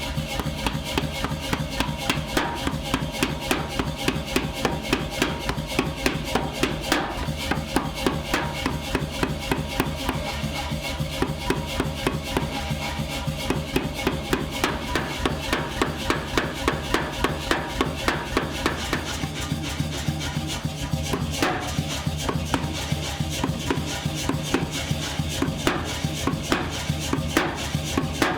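Hand hammer striking steel on an anvil in a steady rhythm, about three blows a second, over background music.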